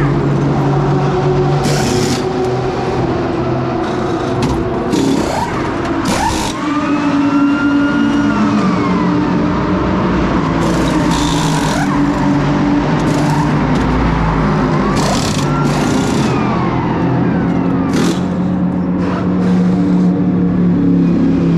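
Race car engines running and revving in the pit lane, the pitch rising and falling twice, with short noisy bursts repeating throughout.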